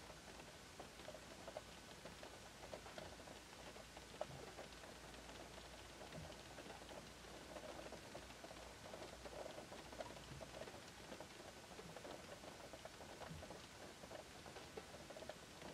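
Light rain falling on a Škoda car, heard from inside the cabin: a faint, even patter of many small drops on the roof and glass, with a few louder single drops.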